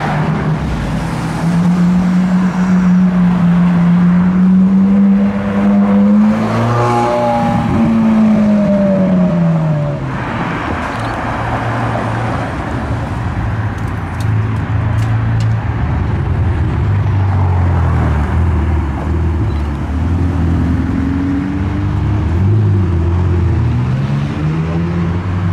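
Sports car engines running as the cars drive slowly by in traffic. About seven to nine seconds in, one car's engine note rises and then falls away as it passes. After that come lower engine notes as other cars idle and pull away.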